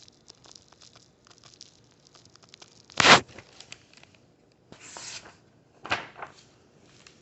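Paper rustling and handling: pages of a storybook being turned, with a few short swishes (the loudest about three seconds in) and light clicks between them.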